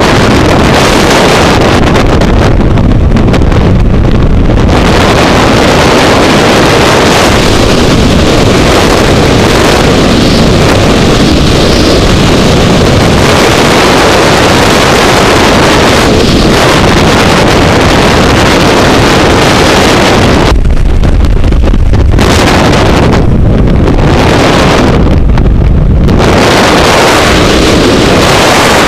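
Freefall wind buffeting a helmet-mounted camera's microphone: a loud, steady rushing roar. Several times, about three seconds in and again around twenty-one, twenty-four and twenty-six seconds, the hiss briefly drops away, leaving a deep rumble.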